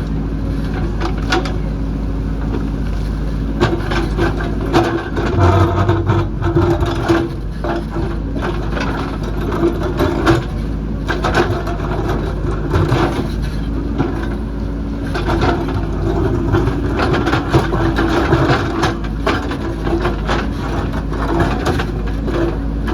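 JCB backhoe loader's diesel engine running steadily, with frequent knocks and scraping of rock and soil as it works the hillside, busier from about four seconds in.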